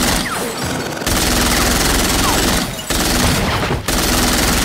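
Petrol chainsaw running at high revs, a loud rough rattling buzz that kicks in about a second in and eases off briefly twice.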